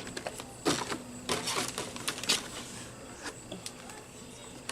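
Irregular clicks, taps and short rustles of hard plastic drone parts and their packaging being handled and fitted.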